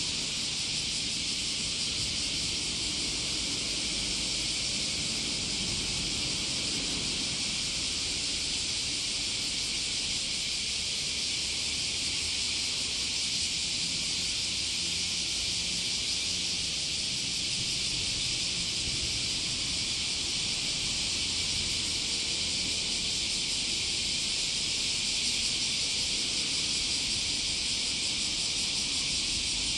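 A steady, high-pitched insect chorus drones without a break, with a low rumble underneath.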